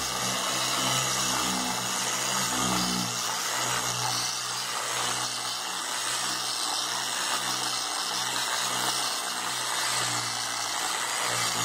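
Harbor Freight dual-action variable-speed polisher running steadily, its orange cutting pad working cutting compound over car paint.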